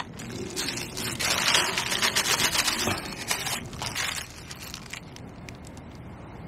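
Black plastic bag crinkling and rustling as it is handled, with a dense crackle for about four seconds, then softer occasional crinkles.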